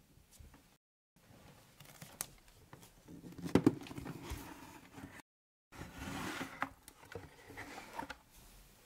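Quiet handling sounds of a cardboard shoebox and shoes being moved on a floor: light knocks and clicks with soft rustling, twice dropping briefly to dead silence.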